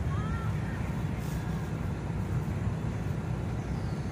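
Steady low rumble of outdoor background noise, with a faint short chirp just after the start.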